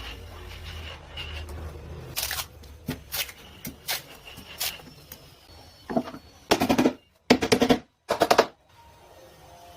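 A few single sharp knocks, then three louder bursts of rapid clattering, each about half a second long, from woodworking tools or workpieces being struck.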